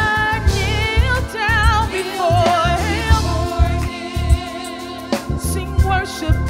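Gospel singing by a group of women on microphones: a lead voice with wide vibrato and backing voices, over instrumental backing.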